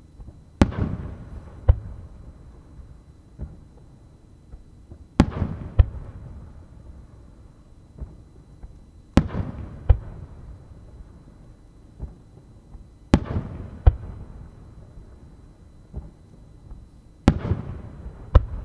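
Aerial firework shells bursting one after another, five in all, about every four seconds. Each burst is a loud sharp boom that trails off in a rumbling echo, with a second sharp crack about a second after it.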